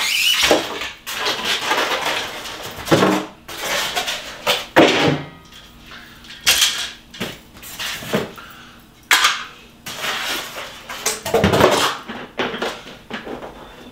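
Hard plastic parts of a 4moms baby product being unpacked and handled: irregular clatter and knocks, with rustling in between.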